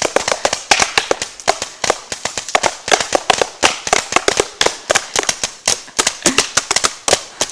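Paintball markers firing a rapid, irregular stream of shots at close range, several pops a second without a break.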